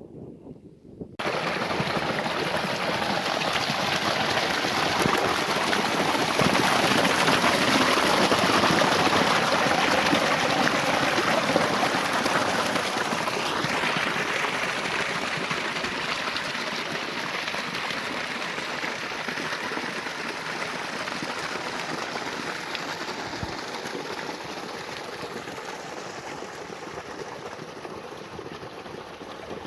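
Steady hiss of water that starts suddenly about a second in and slowly fades.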